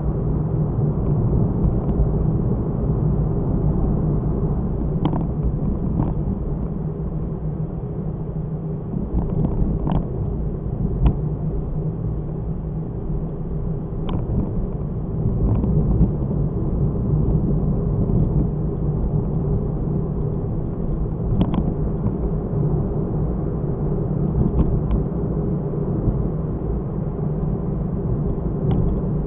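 A car driving, heard from inside: a steady rumble of engine and road noise, with a few short sharp knocks scattered through it.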